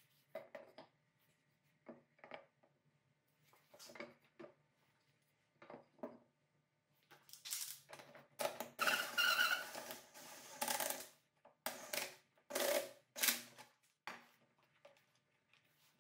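Wooden frame pieces knocking and clattering as they are set into a wooden frame clamp jig, then a DeWalt cordless impact driver run in several short bursts from about halfway through, turning the jig's threaded rod to draw the mitered corners tight.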